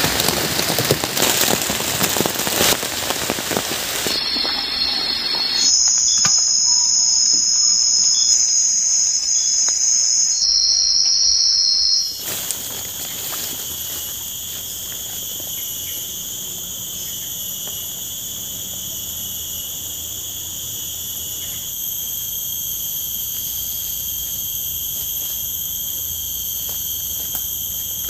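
Heavy rain pattering on a tarp roof for the first few seconds, then a steady, high-pitched chorus of forest insects. About twelve seconds in, the insect chorus changes to a different, slightly quieter steady drone.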